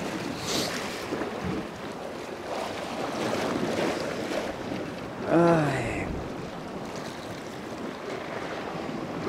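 Sea waves washing against a rocky cliff, with wind on the microphone.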